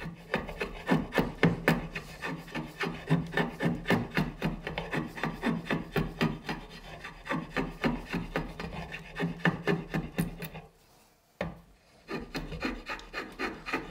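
Spokeshave shaving a wooden maul handle, pulled in quick repeated strokes, about two or three a second, each a short scraping rasp as a curl of wood comes off. The strokes pause briefly near the end, then carry on.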